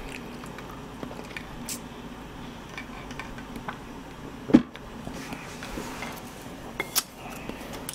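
A drinking glass is set down on a table with one sharp knock about halfway through, and a lighter click follows near the end. A steady low hum runs underneath.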